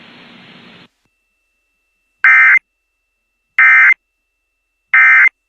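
Emergency Alert System end-of-message signal: three short, loud bursts of SAME digital data tones, evenly spaced about a second and a half apart, marking the end of the alert. Faint static before them cuts off just under a second in.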